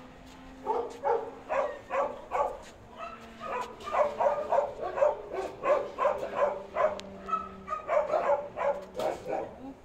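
A dog barking in short, high yips, about three a second, in runs broken by two brief pauses.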